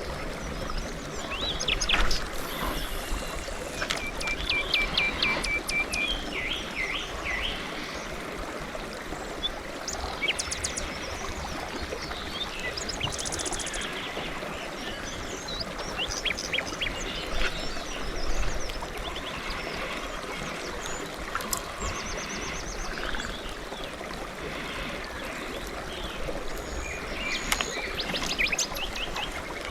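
Several small songbirds chirping and singing, with short calls and quick trills throughout, over a steady rushing background noise.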